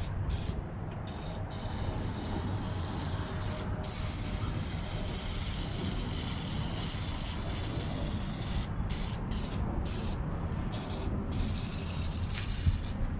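Aerosol oven cleaner hissing out of the can onto greasy drum brake parts in a steady spray, with a few short breaks about two-thirds of the way through.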